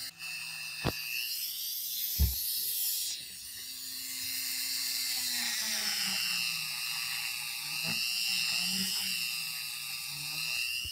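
High-speed handheld rotary tool whining steadily as its spinning cut-off disc, and later an abrasive wheel, grinds against a metal lighter part clamped in a vise. Two sharp ticks come in the first couple of seconds, and the whine stops suddenly at the end.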